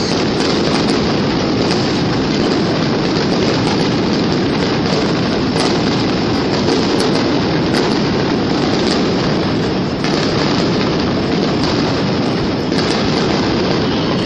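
Fireworks going off in a dense, continuous barrage: many small crackles over a steady rumble of bursts.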